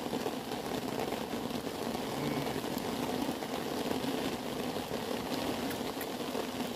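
A lamb sucking milk from a feeding bottle, a steady rough noise close to the microphone.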